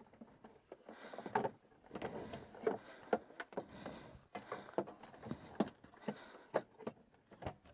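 Scattered light clicks, knocks and rustles of gloved hands handling the coiled cord of a winch's wired remote against the plastic bodywork of a Polaris RZR; the engine is not heard running.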